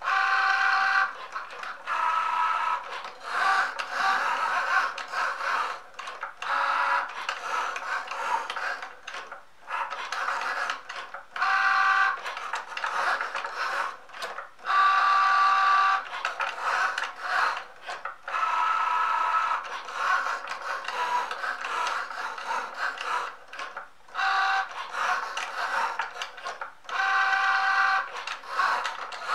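Cricut Joy cutting machine running a cut: its motors whine and whir in stop-start bursts of shifting pitch as the blade carriage moves back and forth and the card mat feeds in and out. The fine-point blade is cutting a pre-made card insert.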